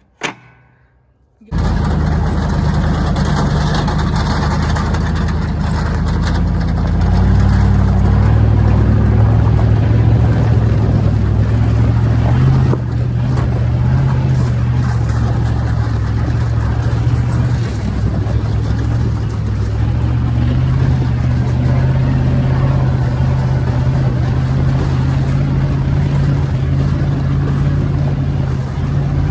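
A vehicle engine runs steadily at speed under a constant rushing noise; the sound starts abruptly about a second and a half in, and the engine note steps up in pitch about seven seconds in.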